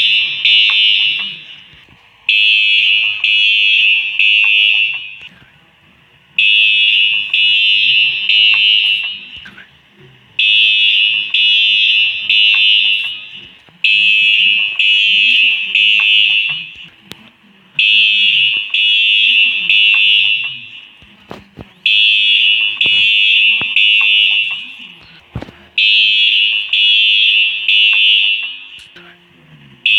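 Fire alarm sounding the temporal-three evacuation pattern: three loud, high-pitched beeps, then a pause, repeating about every four seconds.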